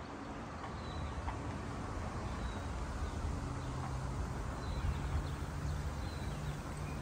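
Outdoor city ambience: a low steady hum of distant traffic with faint, scattered bird chirps.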